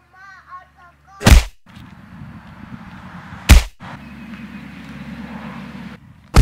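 Two loud, sharp bangs about two seconds apart, over a steady low background noise, with a few brief chirps in the first second.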